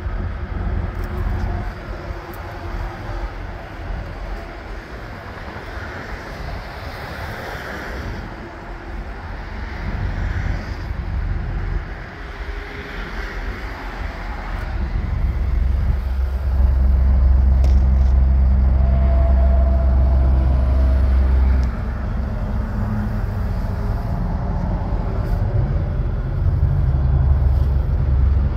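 Detroit DD13 12.8-litre inline-six turbodiesel idling, a steady low rumble that grows louder about halfway through.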